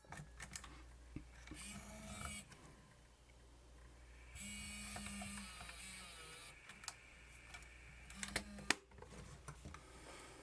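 Sharp VL-E620 Video8 camcorder's tape mechanism loading a cassette: three short runs of small motor whirring with gear clicks, the longest in the middle, and a sharp click near the end.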